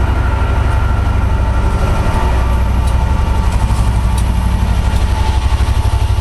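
Diesel train engine running at idle close by, a steady heavy rumble with an even pulse.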